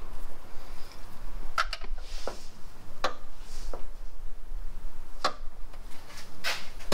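Scattered light clicks and knocks, about seven in all, of hand tools and metal fasteners being handled while parts are unbolted in a car's engine bay, over a low steady hum.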